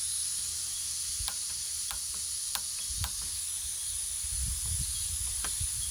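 Gas hissing steadily from a DragonPad ultralight canister backpacking stove whose flame keeps going out, with the piezo igniter clicking about five times as it is worked to relight the burner. Wind rumbles on the microphone in the second half.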